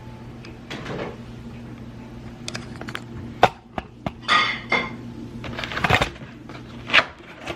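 Hard objects clinking and clanking as they are handled, with several sharp knocks, the loudest near the end, over a steady low hum.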